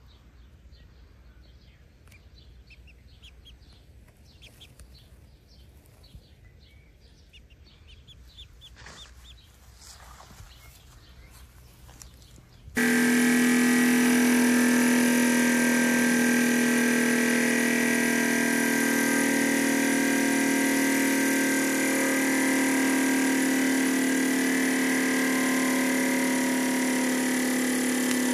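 Faint peeping of a chick, then, about halfway through, a hydraulic press starts abruptly and runs loudly and steadily as its ram crushes Play-Doh tubs.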